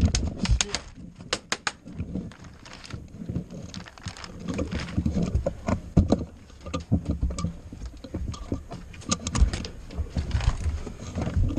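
Airsoft guns firing: scattered sharp cracks and clicks, some in quick runs, over a low rumble of wind and handling on the body-worn microphone.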